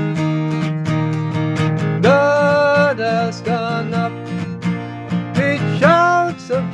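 Acoustic guitar strummed in a steady rhythm under a sung melody, with two long held notes.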